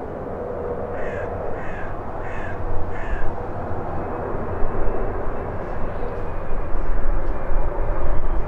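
Bombardier CRJ-900's rear-mounted General Electric CF34 turbofan engines on final approach, a steady jet rumble with a faint whine that grows louder as the airliner nears the runway. A bird caws four times in quick succession between about one and three seconds in.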